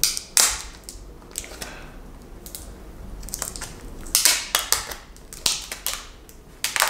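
Protective plastic film being peeled off a new Samsung Galaxy Z Flip, crackling and crinkling in irregular bursts. The loudest cluster comes about four seconds in.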